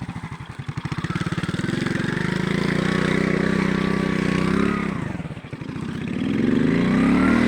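Alpha moped's small single-cylinder four-stroke engine revving. It starts at a low idle with separate firing pulses, climbs and holds for a few seconds, drops away about five seconds in, then revs up again near the end.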